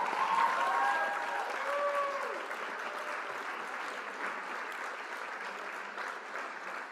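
A crowd applauding, with a few whistles or cheers gliding in pitch in the first couple of seconds, then easing off gradually.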